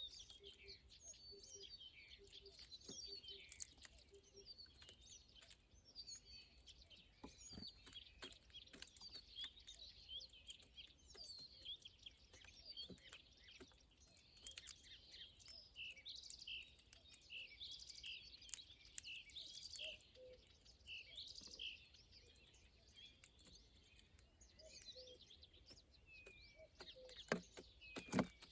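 Many small songbirds chirping and singing at once, their short calls overlapping all the way through. A few sharp knocks come through, the loudest near the end.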